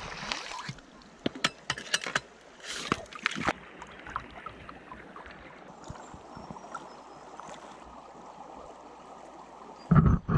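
Gold pan being worked in creek water: gravel clicks against the pan and water swishes at first, then a steady wash of water as the pan is swirled down.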